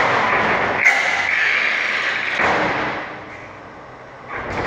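Sharp metal knocks and clanks with a ringing echo. One about a second in hangs on for over a second, a softer knock follows about two and a half seconds in, and another comes near the end.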